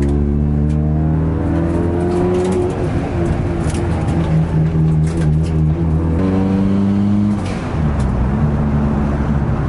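Nissan Silvia S13's turbocharged SR20DET engine heard from inside the cabin while driving: the engine note climbs in pitch, breaks off briefly about two and a half seconds in, holds, then climbs again before dropping to a lower steady note about seven and a half seconds in.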